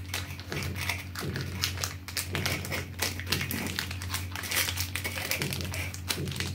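Scissors snipping through a crinkly foil-lined plastic packet, the wrapper crackling and rustling as it is cut and handled, over a steady low hum.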